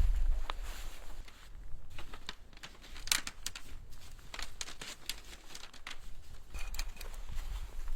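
Close handling noises: scattered crinkling and rustling with sharp clicks, over a low rumble that fades within the first second.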